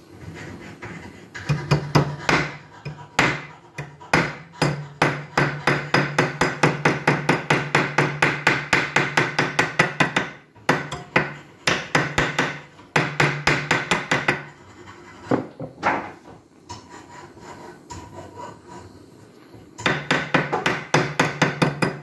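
Hammer blows on a torch-heated iron ring held against a steel block, being beaten back into shape. The blows come in quick runs of about four a second, with short pauses and a longer lull before a last run near the end.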